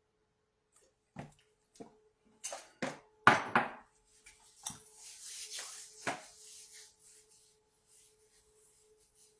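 A few knocks and clinks of a glass and dishes being handled on a kitchen counter, the sharpest a little over three seconds in, followed by a couple of seconds of rustling. A faint steady hum runs underneath.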